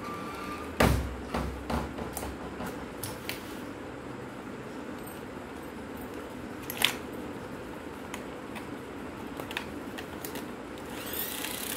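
Handling of an old compact film camera's plastic body: a sharp knock about a second in, a few small clicks and taps just after, another click near the middle, and rustling near the end, over a faint steady hum.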